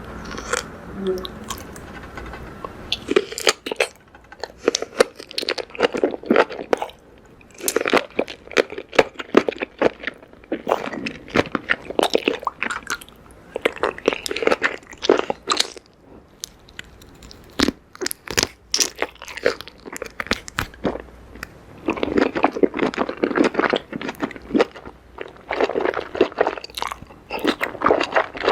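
Close-miked chewing of food in a mouth, in runs of a few seconds separated by short pauses, from eating spicy noodles, enoki mushrooms and squid.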